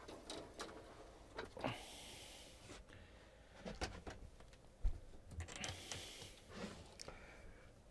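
Scattered clicks and knocks of things being handled and moved about in a search, with two longer sliding or rustling sounds, one about two seconds in and one near six seconds.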